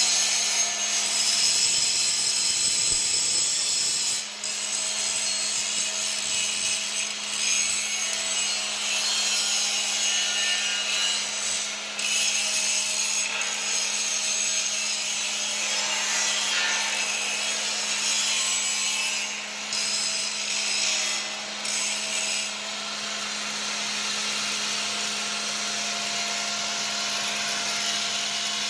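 Salt processing machinery running: a steady motor hum under a continuous gritty, rasping rattle, with a few brief dips in level.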